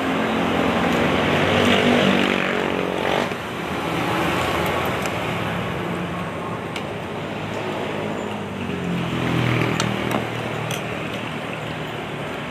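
Passing road traffic: an engine's hum builds and fades within the first three seconds, and another vehicle passes about ten seconds in, over a steady background of street noise.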